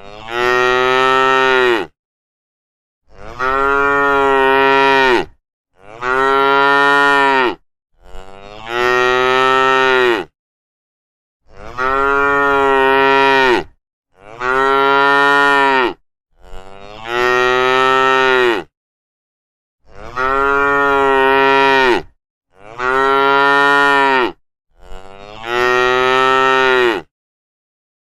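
Cattle mooing: about ten long, drawn-out moos of roughly two seconds each, one after another, with dead silence between them.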